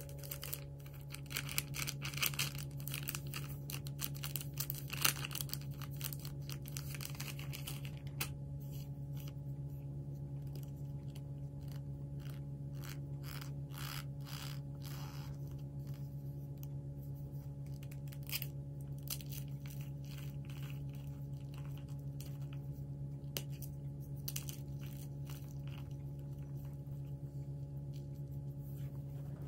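A block of BSN gym chalk (magnesium carbonate) being crushed and crumbled by hand, giving crisp, dry crunches. The crunches come thick and fast for the first several seconds, then thin out to scattered crunches as the block breaks down to powder. A steady low hum runs underneath.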